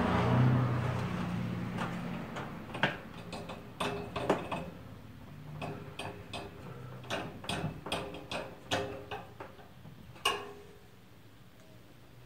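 Irregular sharp metal clicks and taps, about a dozen spread over several seconds, from hands fitting parts and screws on a bare steel computer tower chassis.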